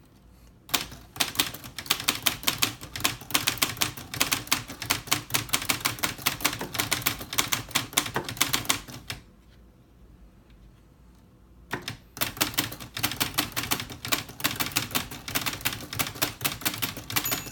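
1948 Olivetti MP1 manual typewriter being typed on quickly: a fast run of key and typebar strikes, a pause of about two and a half seconds, then a second run. The carriage's margin bell rings near the end.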